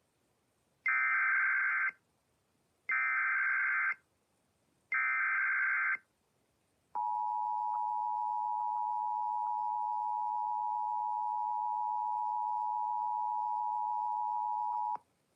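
Emergency Alert System tornado warning opening: three one-second bursts of buzzy SAME header data, about a second apart, then after a short gap the steady two-tone EAS attention signal, held for about eight seconds before it cuts off.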